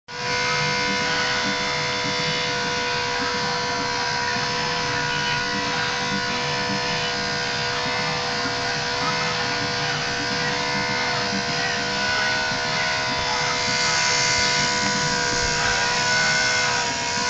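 Electric dog-grooming clippers running with a steady buzzing hum as they shave a dog's coat.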